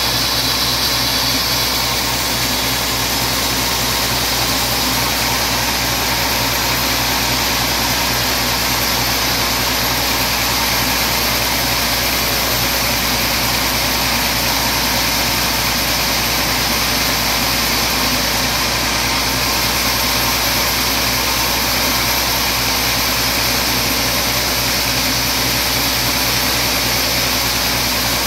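Large sawmill band saw running steadily as its blade rips lengthwise through a teak log fed on the carriage: a loud, even noise of blade in wood over the steady hum of the machine.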